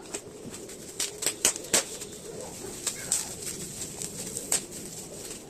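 Sharp clicks and knocks, as of items being handled: four in quick succession about a second in and one more near the end, over a low, wavering background.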